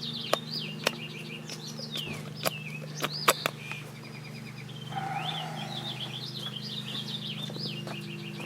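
Songbirds chirping and singing repeatedly, with several sharp clicks and knocks, the loudest a little over three seconds in, over a steady low hum.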